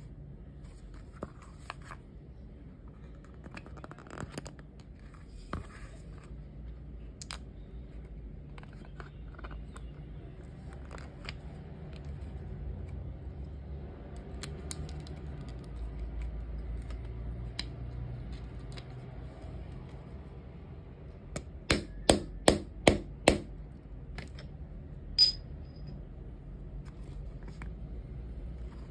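Small metal snap fastener parts and a leather piece handled with light clicks and rustles, then about five quick, sharp hammer strikes on a snap-setting tool about two-thirds of the way through, setting the snap into the leather. A couple of seconds later comes one more sharp metallic tap with a short ring.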